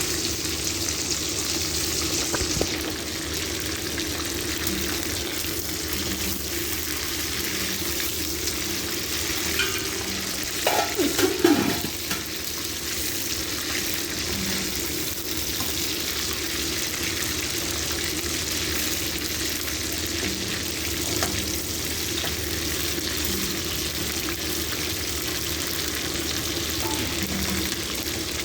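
Chicken karahi frying in a pan with a steady sizzle. About eleven seconds in there is a brief, louder clatter and scrape.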